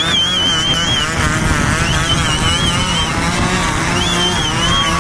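Motorcycles running together in a pack at road speed, the engines mixing into a steady, loud rumble. A high warbling tone sounds over them three times, each about a second long.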